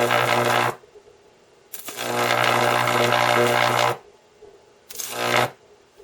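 High-voltage arcs drawn from a microwave oven transformer's secondary, a loud mains-frequency buzz with hiss: three arcs, the first ending under a second in, a longer one of about two seconds, and a short one near the end. The steady arcing shows the transformer is working.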